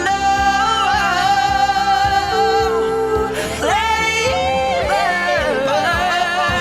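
Music: a high singing voice holding long notes with vibrato and sliding through melismatic runs over a pop ballad backing track.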